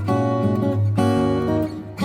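Background music with strummed acoustic guitar chords.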